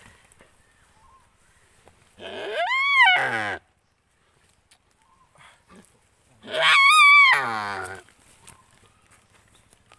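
A Timor (rusa) deer bleating in distress while a Komodo dragon is biting her. There are two loud, drawn-out calls, about two and six and a half seconds in, and each rises and then falls in pitch.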